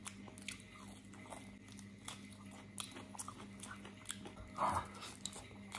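A man chewing a mouthful of beef pulled off the bone, lips smacking: soft, scattered wet clicks, with one louder mouth sound about four and a half seconds in.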